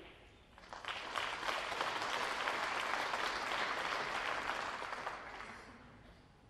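Audience applauding, building up about a second in and dying away after about five seconds.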